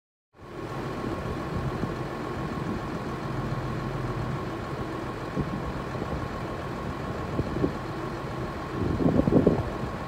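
Diesel engines of two farm tractors idling steadily, with a thin steady whine over the engine noise; the sound swells briefly louder near the end.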